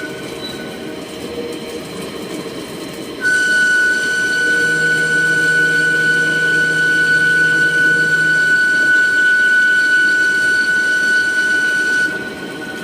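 CNC lathe running while turning an M42×3 thread: a steady high-pitched whine with overtones rises sharply about three seconds in, holds, and drops back near the end, over a rough machining noise.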